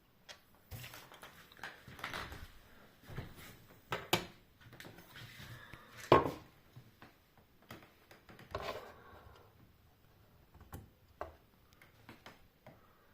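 Irregular light knocks and clicks, with brief rustling between them and one sharper knock about halfway through.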